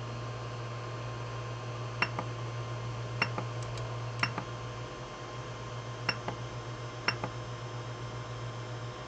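Five sharp clicks, each quickly followed by a softer second click, from a 3D printer's control knob being pressed and released. A steady low hum from the running printer sits underneath.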